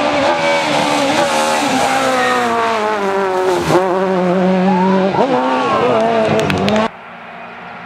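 Citroën C2 rally car's engine revving hard, its pitch climbing and dropping repeatedly with lifts and gear changes as it goes through the bend at speed. The loud engine cuts off abruptly about seven seconds in, leaving a fainter, steadier engine sound.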